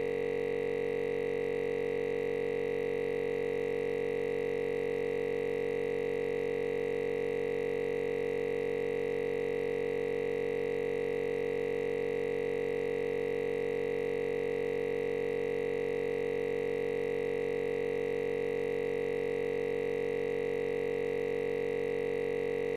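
A steady electronic drone: several tones held together like one sustained synthesizer chord, unchanging in pitch and loudness.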